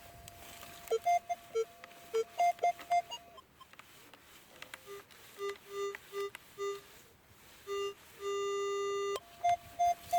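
Metal detector, a Minelab X-Terra 705 in all-metal mode, giving target tones as the coil is swept: a run of short beeps at a few different pitches over a faint steady threshold hum, then a longer low tone held for about a second near the end.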